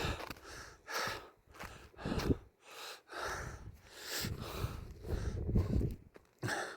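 A person's heavy, gasping breathing, a string of uneven breaths with short gaps between them.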